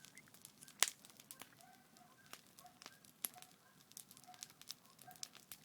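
Wood campfire burning, with sharp irregular crackles and pops, the loudest pop about a second in.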